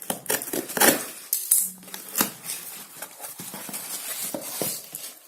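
Watch packaging being torn open and handled: irregular crinkling and scraping with sharp clicks.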